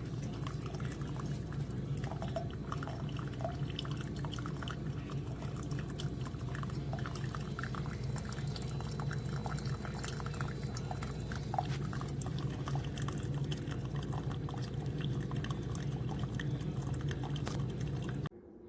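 Single-serve coffee maker brewing: a steady low hum with coffee trickling and dripping into the cup. It cuts off suddenly near the end.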